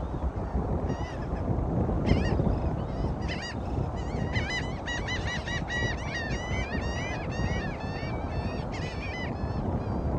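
A flock of birds calling in a rapid chorus of short, repeated calls, sparse at first and dense through the second half, over steady wind and surf noise.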